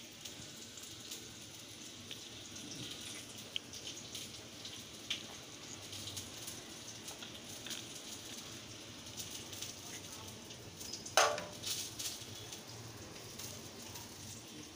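Steady faint sizzle of green plantain slices frying in oil, under small wet clicks of shell-on prawns being cleaned with a knife over a stainless-steel sink. About eleven seconds in there is a single sharp metallic clink.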